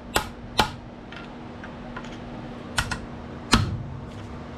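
Hammer striking a chisel, metal on metal, as it is driven in to separate the hot-side turbine housing of a Ford 6.0 L diesel turbocharger. Two blows come early and a quick pair near three seconds, with the loudest about three and a half seconds in; lighter taps fall between them.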